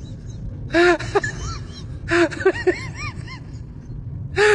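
A high voice making short cries that rise and fall in pitch, in groups about a second apart, each starting with a sharp breathy burst, over a steady low rumble.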